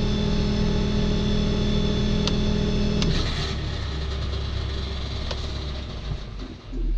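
An engine running steadily. Its tone changes about three seconds in to a lower hum, which dips briefly near the end.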